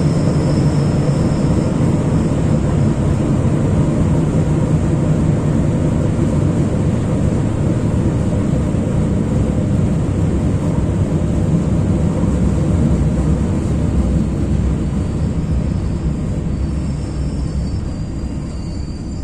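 Running noise inside the motor car of an EN57 electric multiple unit: a steady rumble of wheels on rail with the low hum of the traction motors. It grows quieter over the last few seconds as the train slows into a station.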